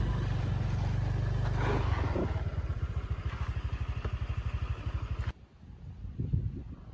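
Small scooter engine running, dropping to a slow pulsing idle about two seconds in, then switched off suddenly about five seconds in. A few faint knocks follow.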